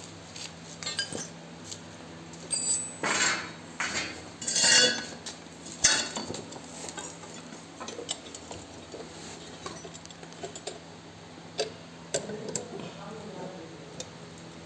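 Steel parts clinking, scraping and rattling as a curved steel soil-covering rod is handled and fastened to the frame of a hand-pushed seed drill. A cluster of scrapes and clanks comes a few seconds in, with a sharp click just after, then scattered lighter clicks.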